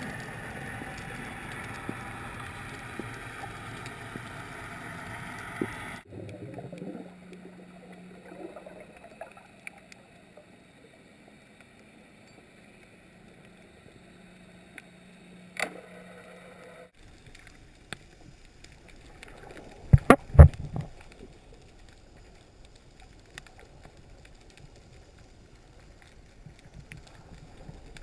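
Underwater camera sound: a muffled wash of water, with a steady low hum through the middle, scattered clicks, and a cluster of loud knocks about twenty seconds in.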